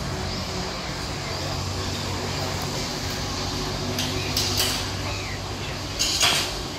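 Outdoor background: a steady low hum with a few short clattering knocks about four seconds in and again about six seconds in.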